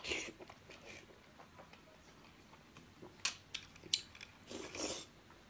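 Mouth sounds of biting skewered oyster meat and pulling it off the skewer: a soft noise at the start, a few sharp clicks a little past halfway, and a half-second louder noise near the end.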